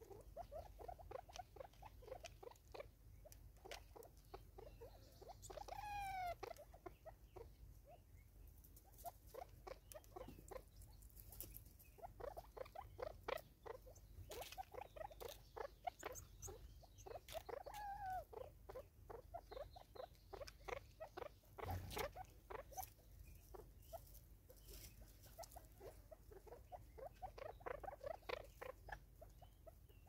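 Natal spurfowls pecking at seed on a wooden stump and plastic bottle feeder: faint, rapid, irregular tapping in runs of several pecks a second. A bird gives a short falling call twice, about six and eighteen seconds in, and there is one sharper knock about twenty-two seconds in.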